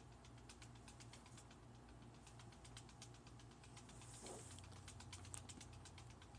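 Near silence: a faint low room hum with a run of light, irregular clicks and ticks, a few a second.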